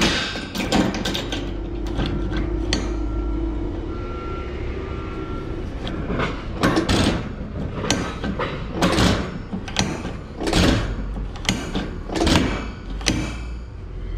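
Chain ratchet binder on a flatbed load chain being cranked tight: a run of about a dozen ratcheting strokes with chain clinking in the second half, on an old binder that takes some work to tighten.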